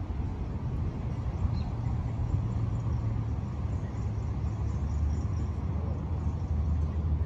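Steady low outdoor rumble with no distinct events, growing a little louder near the end.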